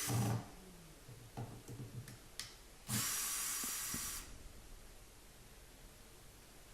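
Power drill driving a screw into wood behind plasterboard in two short runs: one cutting off just after the start, and a second of about a second and a half about three seconds in, with a few small handling clicks between.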